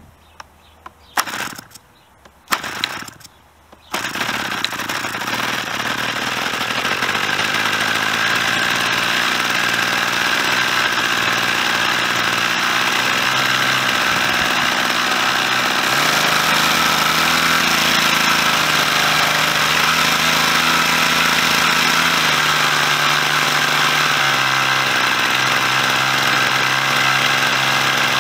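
Rebuilt S.C .52 two-stroke glow model aircraft engine on its first start after the rebuild: a few short pops as the propeller is flicked, then it catches about four seconds in and runs steadily. Its speed steps up about halfway through and drops back somewhat near the end.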